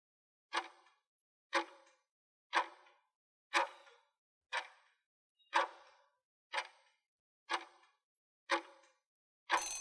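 Quiz countdown-timer sound effect: a clock-like tick once a second, nine ticks, then a short bell-like ring near the end as time runs out.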